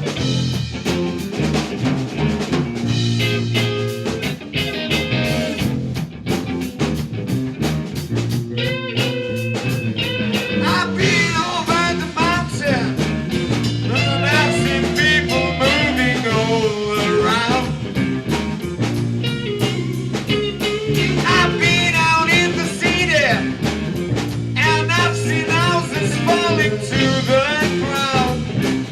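Rock band music: drums, bass and electric guitar playing a repeating riff, with a wavering lead line coming in about eleven seconds in.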